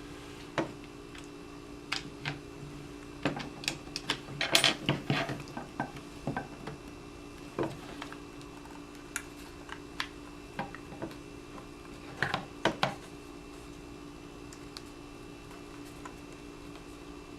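Hard plastic and metal parts of a Tippmann TPX paintball pistol clicking and knocking as its two shell halves are fitted together, with a dense run of clicks about four to five seconds in and another pair of knocks around twelve seconds, over a faint steady hum.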